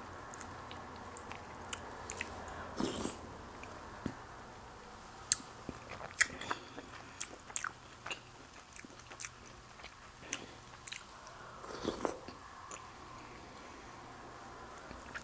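Quiet, close-miked sounds of a person eating soup from a spoon: soft chewing with small mouth clicks and smacks, scattered at irregular intervals.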